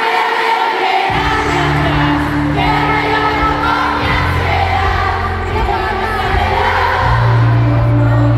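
Live pop music over an arena sound system, heard from the audience: a woman sings a melody into a handheld microphone over the band, with a deep sustained bass line coming in about a second in and shifting note twice. The crowd is audible beneath the music.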